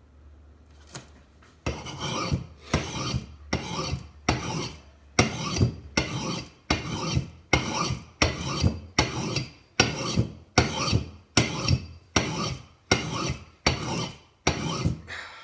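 Axe blade being sharpened on an oiled sharpening stone: a steady run of about twenty short, raspy scraping strokes, roughly one and a half a second, starting a couple of seconds in.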